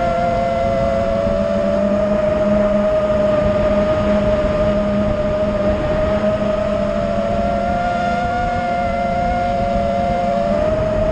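Nazgul Evoque F5 quadcopter's four brushless motors and propellers whining steadily in flight. Their pitches drift slightly apart and back together with throttle changes, around the middle and again near the end. A rushing wind noise runs underneath on the onboard camera.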